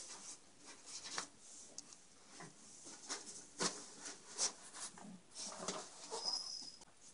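Faint, scattered rustles and light taps of a cat batting and pushing at a plastic shower curtain in a tiled shower stall.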